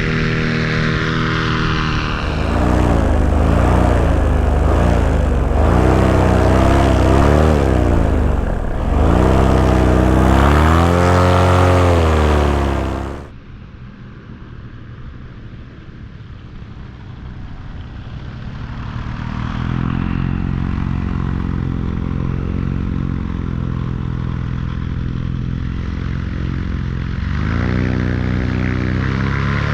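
Paramotor's backpack engine and propeller running loud, its pitch rising and falling with the throttle, mixed with wind noise. About 13 seconds in the sound drops off sharply, then builds back over several seconds to a steady drone.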